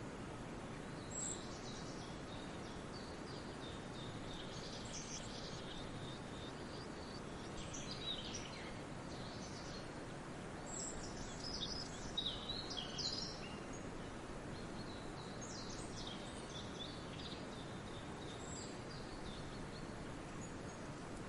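Birds chirping in scattered clusters of short, high calls, busiest about halfway through, over a steady low background hiss of outdoor ambience.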